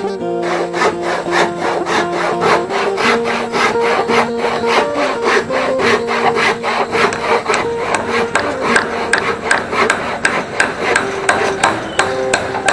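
Background music with a quick, steady beat and held notes that change pitch every second or two.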